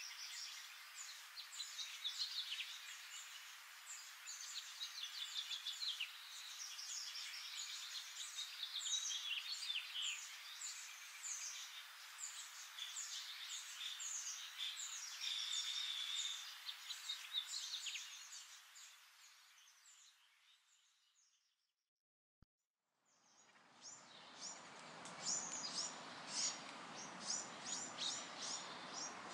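Birds chirping many times over a steady hiss of ambient noise. It fades out about three-quarters of the way through, goes silent for a moment, then comes back with more low rumble under the chirps.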